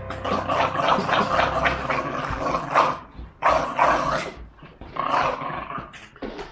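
Small dog growling and snarling in rough play-biting, in a string of short noisy bursts with brief pauses.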